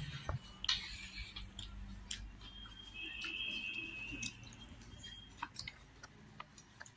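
Scattered light clicks and taps of someone eating a rice meal from a plate, with faint chewing.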